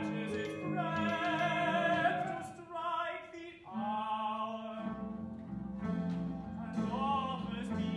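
Operatic tenor singing in English with vibrato over sustained low orchestral chords. The voice breaks off briefly about three and a half seconds in, then starts a new phrase.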